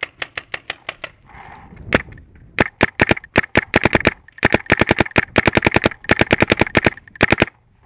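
Shocker RSX electropneumatic paintball marker firing rapid strings of shots, heard close up from a camera mounted on its barrel. A short string comes right at the start, then a single shot, then from about two and a half seconds in, bursts of about ten shots a second with brief pauses, stopping shortly before the end.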